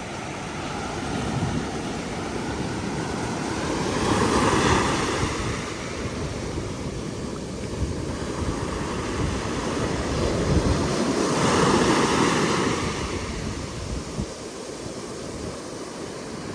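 Sea waves washing in, swelling twice about seven seconds apart, with wind buffeting the microphone.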